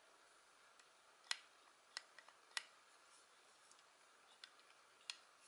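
Jaguar SR500 staple remover's spring-loaded metal hinge and plastic handles clicking as it is worked in the hands: about five short sharp clicks at uneven intervals.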